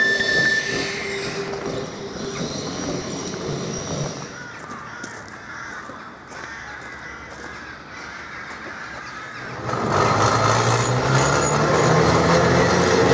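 Manx Electric Railway electric tramcars running. In the first second a car rolling round a curve gives a steady high tone that fades away. About ten seconds in, another car moves off close by, and its motors and wheels on the rails grow loud with a low hum.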